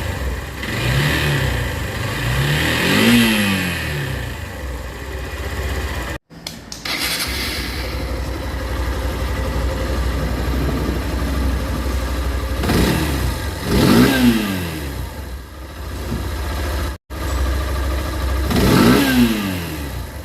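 Engine of a Hero three-wheeler idling, with the throttle blipped several times so the revs rise and fall quickly, in a cluster at the start, twice about two-thirds through and once near the end. The sound cuts out completely for a moment twice, about six and seventeen seconds in.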